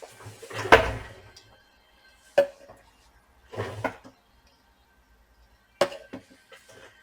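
Small tools clicking and knocking against a workbench and circuit board, five or six sharp taps, some followed by a short scrape, while the board is being cleaned.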